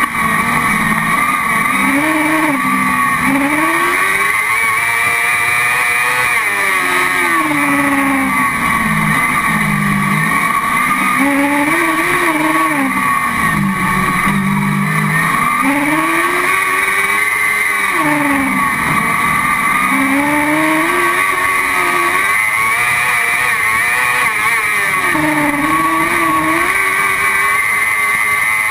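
Autocross car's engine heard from inside the cockpit at race pace, its pitch climbing and dropping again and again as the driver accelerates and lifts through the corners of a dirt track. A steady hiss runs underneath.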